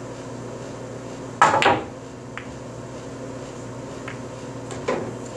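Pool shot: a loud sharp clack of cue on cue ball, and ball on ball, about a second and a half in. A few faint ball clicks follow.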